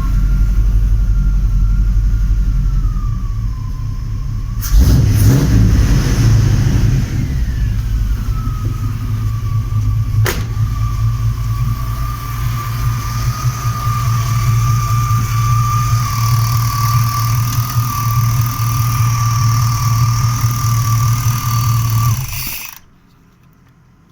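A GM 350 throttle-body-injected V8 being cranked by its starter with a steady whine, without catching: the engine won't start. A louder, rougher sound comes in about five seconds in, there is a single click near ten seconds, and the sound cuts off suddenly a little before the end.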